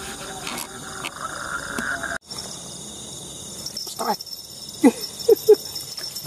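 Night insects such as crickets chirring steadily. The sound breaks off for an instant about two seconds in, and a few short, sharp sounds come between about four and five and a half seconds in.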